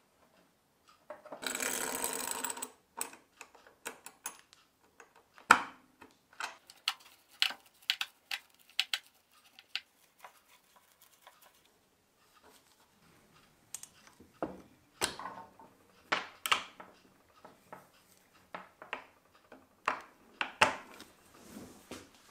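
Metal parts being handled and fitted by hand, copper tubing and brass fittings knocking against the assembly: a short scraping rustle about a second in, then a scattered series of sharp clicks and taps.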